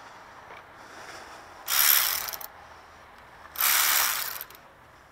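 Ratchet wrench clicking in two short spells, each under a second, about two seconds apart, turning the alternator belt adjuster bolt to tension the drive belt.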